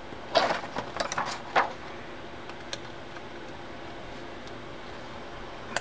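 Pliers and small metal reel parts being handled on a workbench: a few sharp clicks and scrapes in the first second and a half and one faint click later, over a steady low hum.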